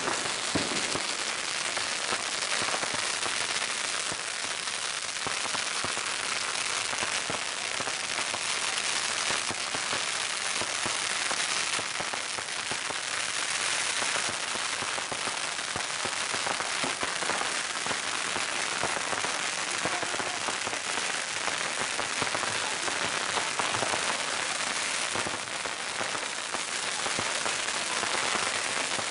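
Long hanging strings of red Chinese firecrackers exploding together in a dense, unbroken rattle of rapid small bangs.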